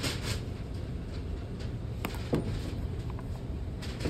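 Steady low store background rumble, with a few brief clicks and a plastic crinkle about two seconds in as a plastic snack-slush pouch is handled and set back on a metal shelf.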